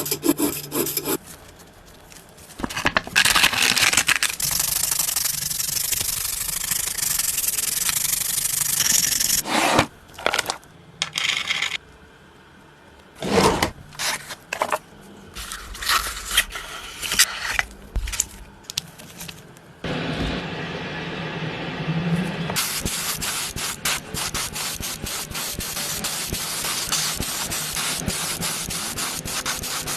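Sanding and scraping in bursts with short pauses, becoming steady rapid strokes from about twenty seconds in.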